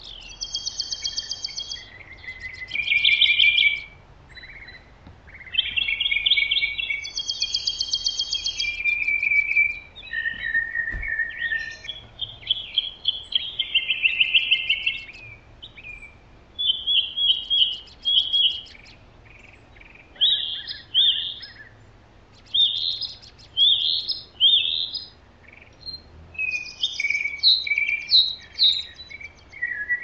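Songbirds singing steadily: short phrases of clear whistled notes alternating with rapid high trills, with brief pauses between phrases.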